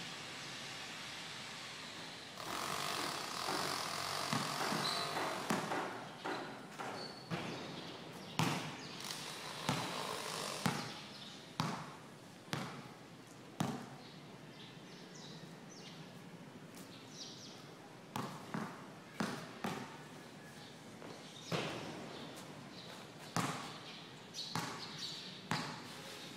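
A basketball is dribbled on a concrete court: single sharp bounces at an uneven pace, fewer for a few seconds midway and quicker in the last third. Steady outdoor background noise runs underneath and swells for a few seconds near the start.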